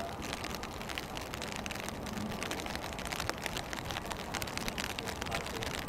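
Steady rain, with many drops pattering close to the microphone.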